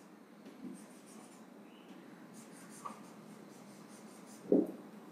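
Faint marker strokes on a whiteboard as short signs are written, with a small click just before the three-second mark. A brief, louder low sound comes about four and a half seconds in.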